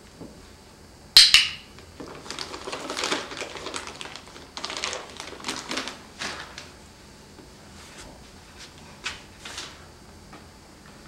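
A sharp click about a second in, then crinkling and rustling of a cat-treat pouch being handled, in short crackly bursts over several seconds, with a few more rustles near the end.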